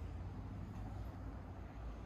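Steady low rumble of city street ambience, the even hum of distant traffic.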